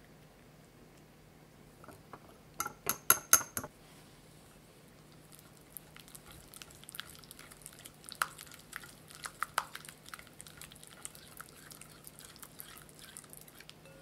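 Wire whisk beating egg yolks and vegetable oil in a glass bowl. About three seconds in there is a quick run of sharp clinks of the whisk against the glass. From about halfway on comes steady whisking, with the wires ticking and scraping in the thick mixture.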